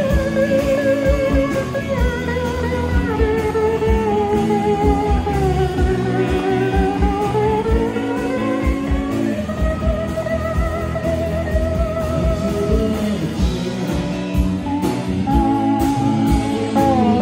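Live rock band playing an instrumental passage: an electric guitar lead holds long, wavering notes that slide down and back up about midway, over drums and rhythm guitars.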